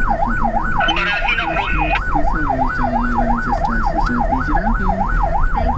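Ambulance's electronic siren on fast yelp, its pitch sweeping up and down about four times a second without a break, heard from inside the ambulance over its engine and road noise.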